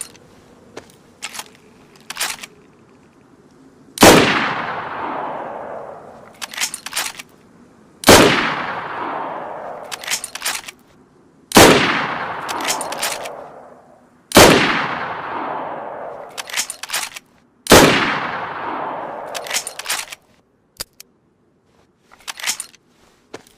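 Mosin-Nagant 91/30 bolt-action rifle in 7.62×54mmR fired five times, three to four seconds apart. Each shot is a sharp crack followed by an echo that dies away over about two seconds. Quick clusters of metallic clicks from the bolt being worked fall between the shots and after the last.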